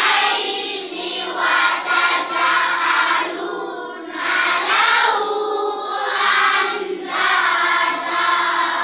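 A group of children's voices chanting together in unison: melodic Quranic recitation in long phrases with short breaks between them.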